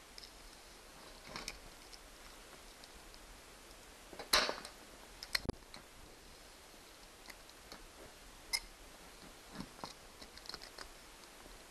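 Scattered light clicks and scrapes of small needle-nose pliers and metal fish tape being worked inside a hole in drywall, trying to grab the wire. The loudest click comes about four and a half seconds in, with a sharp knock about a second later.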